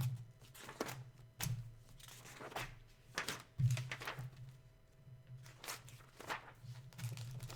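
Desk handling noise: scattered sharp clicks and soft knocks, irregularly spaced, over a low steady hum.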